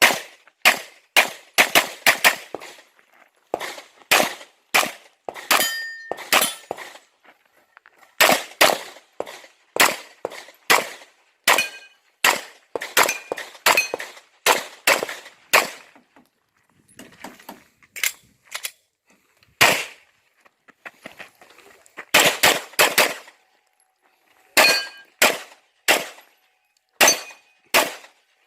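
Pistol shots fired in quick strings of several a second, with short pauses between strings. A few shots are followed by a brief metallic ringing clang.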